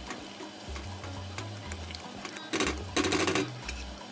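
A spoon stirring thick, simmering pepper sauce in a pot, scraping and clicking, with a louder stretch of rough scraping about two and a half to three and a half seconds in. Background music with a steady bass line plays throughout.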